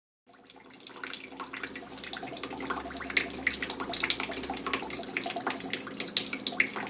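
Thin stream of water pouring from a tap and splashing below, a dense irregular patter of small splashes and drips that fades in over the first second.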